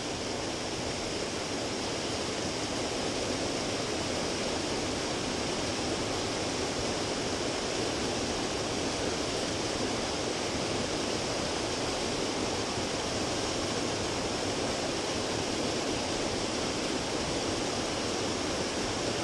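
Waterfall running: an even, unbroken sound of falling water that holds steady throughout.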